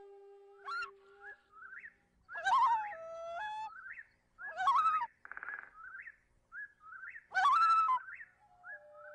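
Background flute music with bird calls: a held flute note stops about a second in, followed by short rising chirps and three louder, wavering calls.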